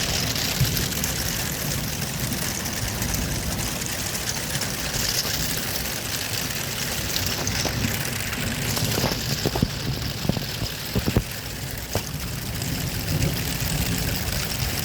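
Heavy rain falling steadily over a low rumble, with a few sharp drip-like taps a little past the middle.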